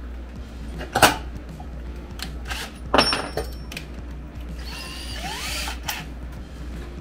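Two sharp knocks of tools being handled on a wooden workbench, about one and three seconds in, with smaller clicks between, then about a second of rattling from a cordless drill as a bit is set in its chuck.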